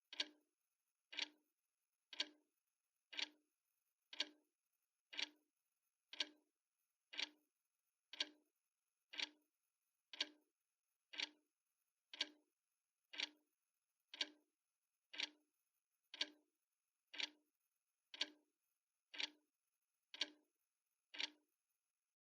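Sharp, evenly spaced ticks, about one a second, like a mechanical clock's tick, stopping about a second before the end.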